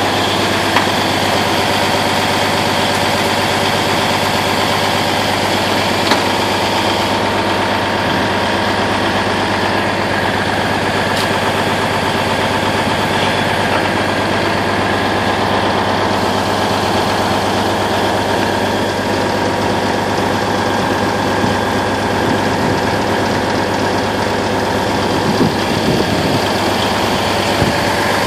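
Tanker truck's diesel engine idling steadily, with a few small knocks over it.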